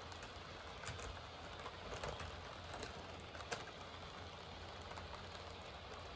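HO scale model train running, pulled by two diesel locomotives: a faint steady rolling hum of wheels on track and locomotive motors, with a few light clicks scattered through it.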